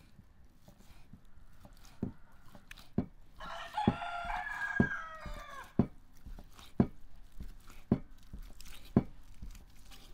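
Kitchen knife slicing through boiled beef tongue, knocking on a wooden chopping block about once a second from about two seconds in. A rooster crows in the background for about two seconds, a few seconds in.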